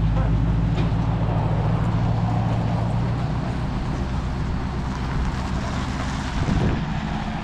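Royal Enfield Himalayan's single-cylinder engine running at a steady, unchanging pitch, growing a little weaker about three seconds in.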